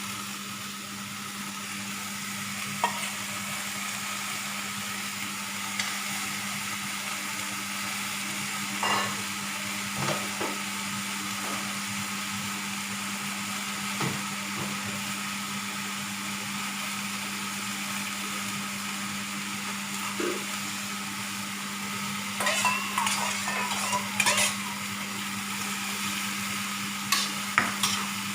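Food sizzling steadily in a frying pan while a utensil stirs it, with short scrapes and clinks against the pan now and then, clustered near the end, over a steady low hum.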